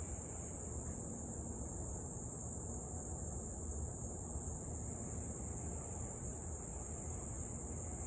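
Steady, high-pitched insect chorus over an even low background rumble.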